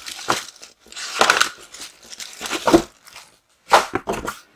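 Clear plastic packaging bag crinkling in irregular bursts as it is handled.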